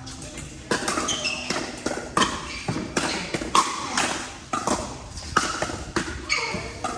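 Pickleball paddles hitting a plastic pickleball during a rally: a rapid series of sharp pocks, about two a second.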